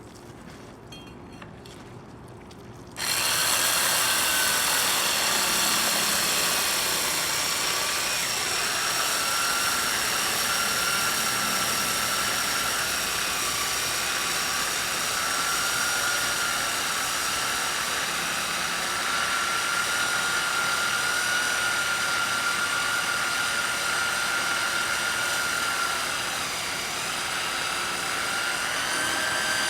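Virginia Abrasives CD3 three-speed handheld core drill starting up suddenly about three seconds in, then running steadily in third speed with a high motor whine that wavers slightly in pitch.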